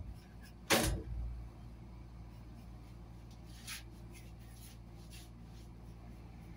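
Two loud knocks about a second apart at the start, then a steady low hum with a few faint light ticks.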